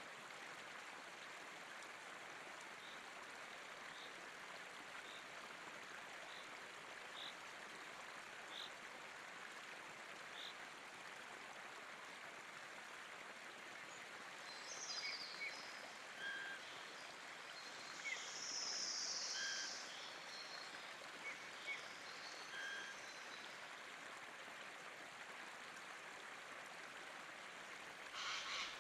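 River water running steadily over stones, with small birds calling over it in short high chirps. The calls come thicker and louder about halfway through, and a short sharper burst comes near the end.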